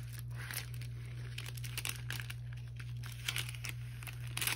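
Clear plastic protective film on a diamond-painting canvas crinkling in irregular little crackles as hands smooth and handle it, over a steady low hum.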